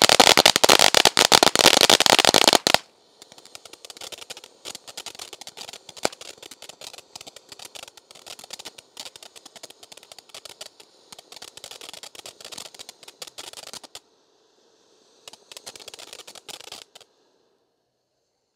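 Consumer firework fountain throwing out a loud, dense crackle that cuts off suddenly about three seconds in. A much quieter fountain then keeps spitting sparks with a light, uneven crackle, pausing briefly and stopping a little before the end.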